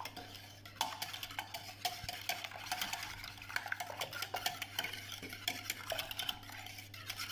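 Eggs being beaten by hand in a bowl: a utensil swirling through the liquid and clicking quickly and irregularly against the sides of the bowl.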